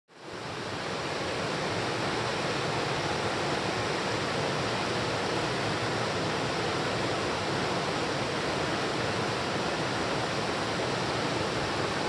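Mountain stream rushing over a rocky bed: a steady, even rush of flowing water that fades in over the first second.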